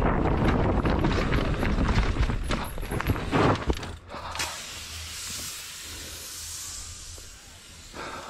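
A downhill mountain bike clattering and rattling over rocks, with wind rushing over the camera microphone. About four seconds in, the clatter drops away to a quieter, steady hiss.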